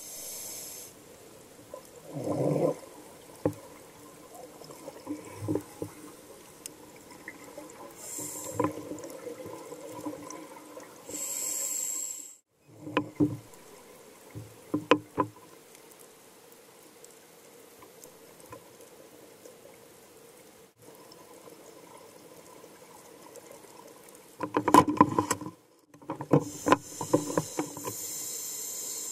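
Scuba diver breathing through a regulator underwater: a hiss as air is drawn in and a bubbling gurgle of exhaled bubbles, a breath every several seconds, with a few light clicks.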